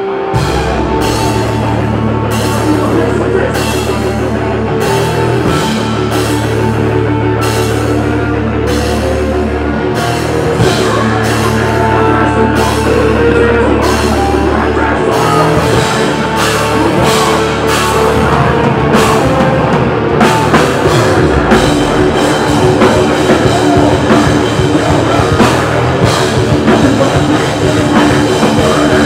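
Live heavy rock band playing loud: distorted electric guitar, bass and drum kit. Heavy held chords with evenly spaced crashing drum hits for about the first half, then the drumming turns faster and denser.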